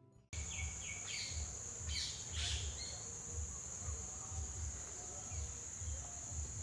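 Outdoor ambience with a steady high-pitched insect drone and a few short bird chirps in the first few seconds, over a low, uneven rumble.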